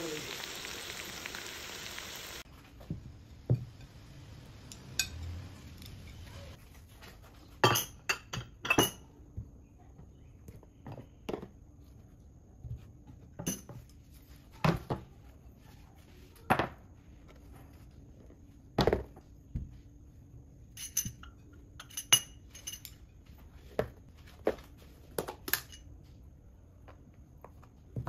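Food sizzling on a cast iron sizzle platter, cutting off suddenly about two seconds in. Then scattered clinks and taps of cutlery, glass and ceramic dishes being handled on a table, some in quick clusters.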